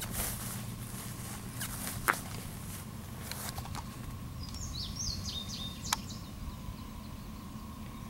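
Faint low rumble of a distant train under rural outdoor ambience, with a faint steady high tone. A bird gives a short run of chirps about five seconds in, and there are two sharp clicks, near two and six seconds.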